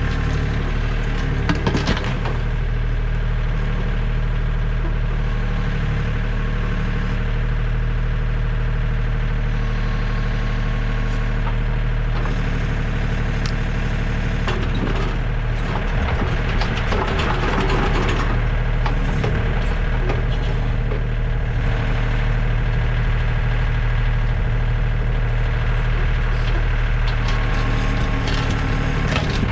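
Tractor backhoe's diesel engine running steadily under load, with wood cracking and splintering as a stump's roots break, most busily just after the start and again about halfway through.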